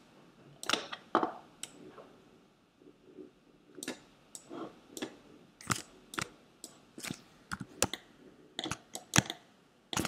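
Irregular clicks of a computer mouse and keyboard, sometimes single and sometimes in quick runs, more frequent in the second half.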